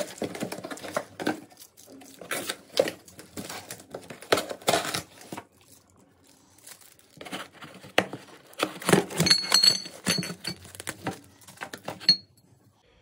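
Cardboard carton being unpacked: flaps and tape scraping and tearing, and foam packing rustling. About nine seconds in, glass bottles clink together with a high ringing chink as one is lifted out.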